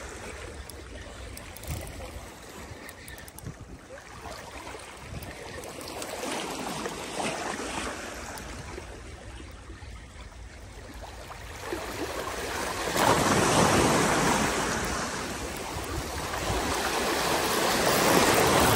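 Calm sea water lapping and splashing close by, growing louder in the second half with two stronger surges of swishing water.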